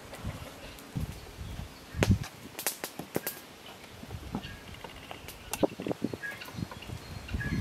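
Outdoor ambience with scattered sharp clicks and low thumps, strongest about two to three seconds in, then short high bird chirps in the second half.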